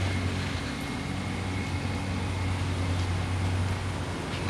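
A steady low mechanical hum, like a motor or engine running, holding level throughout.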